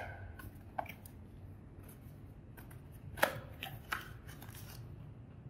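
Small cardboard box of piston rings being opened and handled in gloved hands: a few scattered crinkles and taps, the loudest about three seconds in, over a steady low hum.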